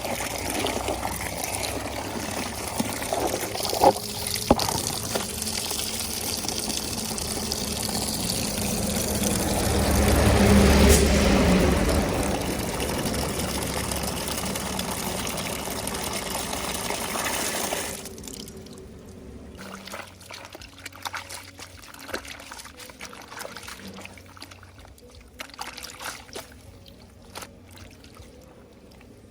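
Water pouring steadily, loudest around ten to twelve seconds in, then cutting off sharply about eighteen seconds in. Quieter trickling and small splashes follow.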